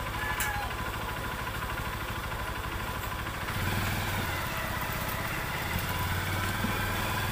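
A small engine running steadily at idle, growing louder about three and a half seconds in, amid the general hubbub of a crowded street market.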